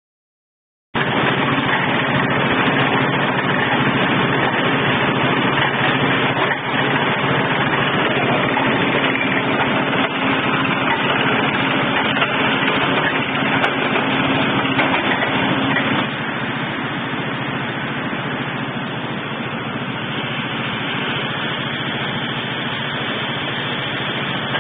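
Portable water-well borehole drilling rig running: a steady engine hum under dense mechanical noise, which drops in level and loses its low hum about two-thirds of the way through.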